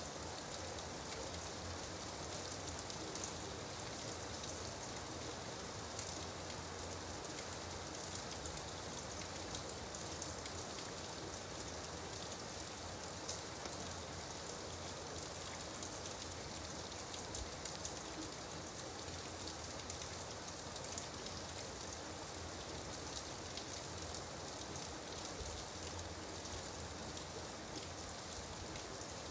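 Gentle rain falling steadily: an even hiss with scattered sharper drop ticks.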